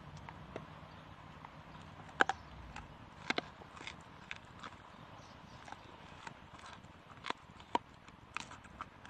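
Golden retriever crunching and gnawing a raw meaty bone: irregular sharp cracks and clicks of teeth on bone. The loudest crack comes about two seconds in, with a few more strong ones near seven to eight seconds.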